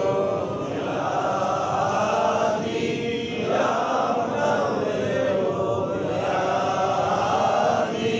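Sufi devotional chanting: voices reciting in repeated phrases, pausing briefly about every two and a half seconds.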